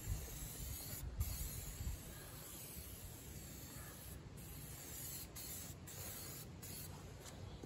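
Aerosol spray paint can hissing in long passes, with several short breaks between strokes.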